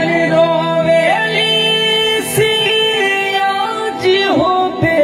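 A man singing a rustic Bhojpuri wedding folk song (vivah geet) into a microphone, holding long wavering notes that bend in pitch, over a steady sustained accompaniment.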